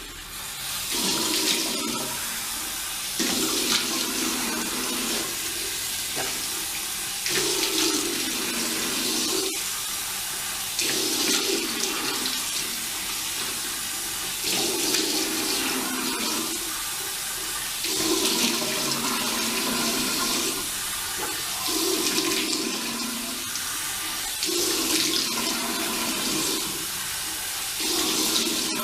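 Tap water running into a sink, with a repeating pattern about every three and a half seconds that fits cupped hands filling under the stream and splashing water onto the face to rinse off cleanser.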